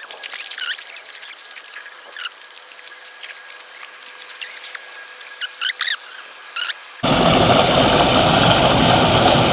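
Small birds giving a few short, squeaky chirps over a faint hiss. About seven seconds in, loud rushing and splashing of creek water cuts in abruptly.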